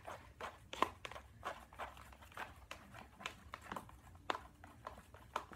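Foamy slime base of white glue, shaving cream and foaming hand soap being stirred fast in a plastic bowl: a quick, irregular run of soft wet clicks and squelches, a few a second. The mixture is not yet activated.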